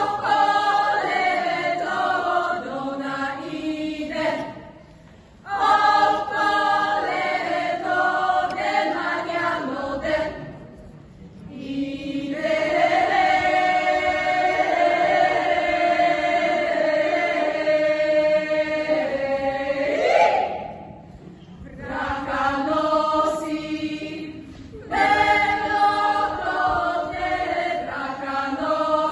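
Women's folk choir singing a Bulgarian folk song a cappella, in phrases broken by short pauses. Near the middle the voices hold one long chord that ends in an upward slide before the next phrases.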